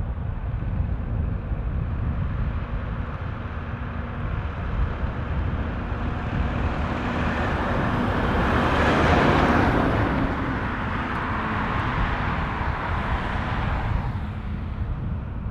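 Airbus A350 jet departing, the noise of its Rolls-Royce Trent XWB engines swelling to a peak about nine seconds in as it passes, then fading, over a steady deep rumble.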